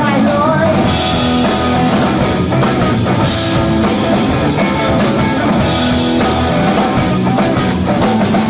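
Live blues-rock band playing an instrumental passage: electric guitar over bass and drum kit, with no vocals.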